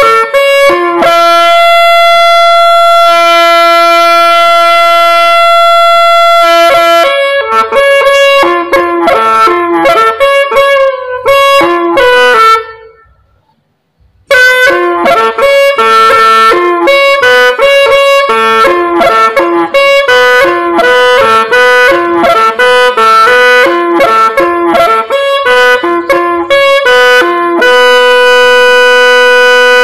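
A Hmong raj (bamboo pipe) played solo in a slow, sorrowful tune. Runs of quick notes alternate with long held notes. The playing breaks off for about a second and a half midway and ends on a long held note.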